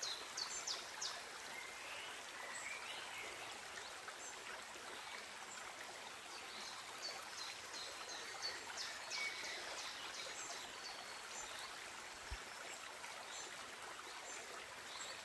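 Steady rush of a shallow forest stream flowing over stones, with birdsong over it: a quick run of short high notes at the start and again about seven seconds in, and a few scattered chirps.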